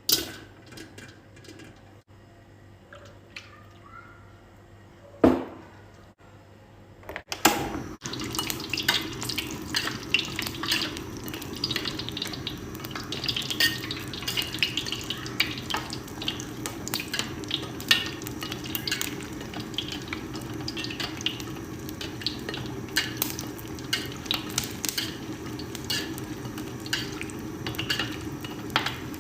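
Popcorn cooking in a pan of hot oil: after a couple of loud knocks, a steady sizzle starts about eight seconds in, dotted with many sharp pops.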